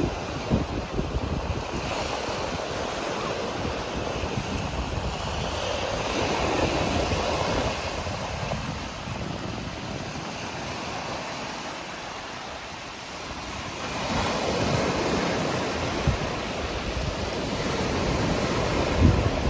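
Sea surf washing onto the beach, swelling louder twice as waves break, about six and fourteen seconds in, with wind buffeting the microphone.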